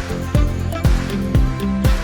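Background music with a steady beat of about two bass thumps a second under sustained synth-like notes.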